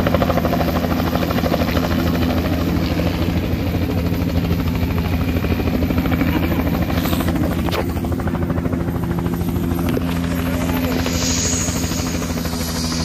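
Small skid helicopter running close by with its main rotor turning: a loud, steady, fast chop of the blades over the engine's drone.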